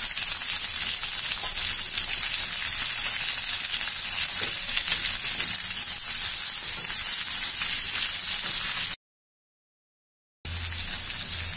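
Chopped onion and capsicum sizzling in hot oil in a kadhai while being stirred with a slotted metal spatula: a steady frying hiss. It cuts out to complete silence for about a second and a half near the end, then resumes a little quieter.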